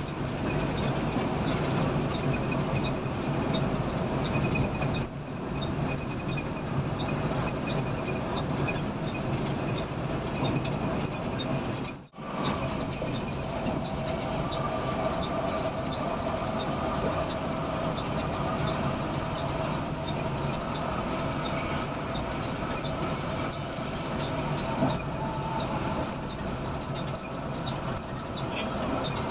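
Intercity coach running at highway speed, heard from inside the cabin: a steady engine and road rumble. A faint regular ticking about twice a second runs through the first part, and the sound drops out for an instant about twelve seconds in.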